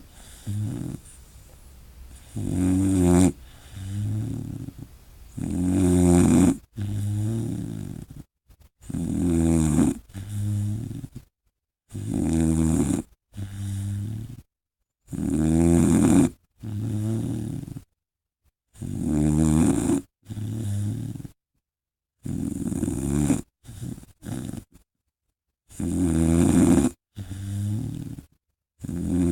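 Great Dane puppy snoring loudly in a steady rhythm: a long, rattling snore followed by a shorter, softer one, repeating about every three and a half seconds.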